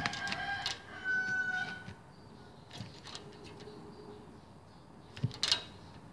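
Young kitten mewing twice in quick succession, a short cry followed by a steadier, higher one. Two sharp taps follow near the end.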